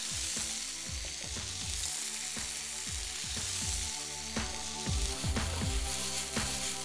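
Diced vegetables sizzling as they fry in a pan, with a spoon knocking and scraping against the pan as salt is sprinkled over and worked in.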